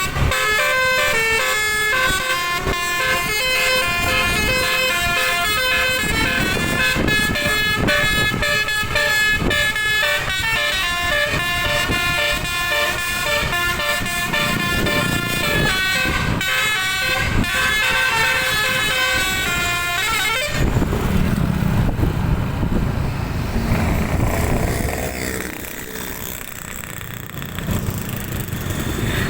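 Tour bus telolet horn playing a quick melody of multi-tone blasts that change pitch in steps, for about twenty seconds, then cutting off suddenly. Engine and traffic rumble follows.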